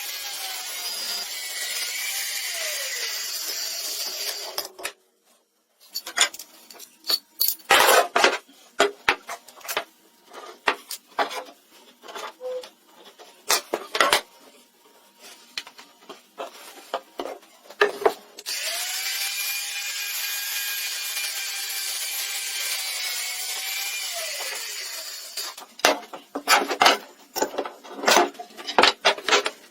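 Woodworking: a small power tool runs steadily on wood twice, each time winding down with a falling pitch. In between and near the end come irregular sharp knocks and scraping strokes from hand work on wood.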